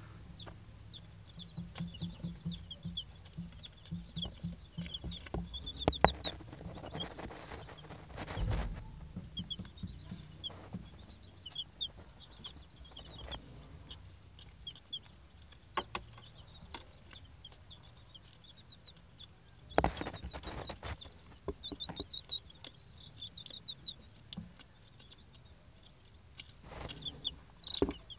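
Eight-day-old silver laced Wyandotte chicks peeping: many short, high chirps in quick clusters, with a few sharp knocks and some rustling.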